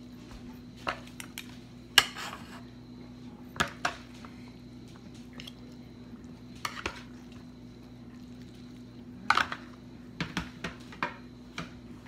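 A metal spoon and chopsticks clink and scrape against a ceramic plate while a salad is tossed. The taps are scattered and irregular, the loudest about two seconds in, with a cluster of clinks in the last few seconds.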